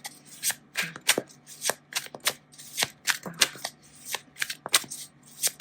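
A deck of tarot cards being shuffled and handled by hand: a run of crisp, irregular card snaps and flicks, about one or two a second.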